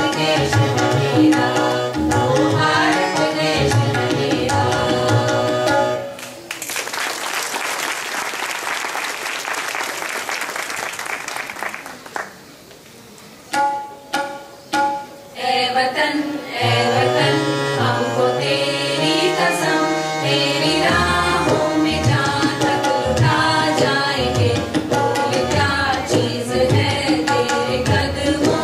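Indian song with tabla and singing voices. About six seconds in the music breaks off for several seconds of dense, even noise, then starts again a little past the middle.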